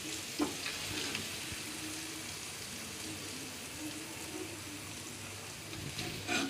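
Faint, steady sizzle of tomato-onion chutney cooking in the pan, with a few light clicks from a utensil.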